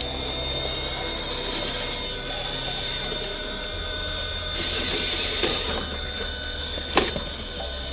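RC rock crawler truck's electric motor and gearbox whining steadily as it crawls up a rock, with a single sharp knock near the end.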